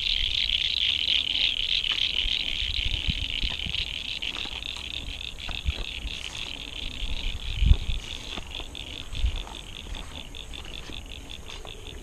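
Frogs calling in a high, fast-pulsing chorus that slowly grows fainter, with a few low thumps of handling or movement.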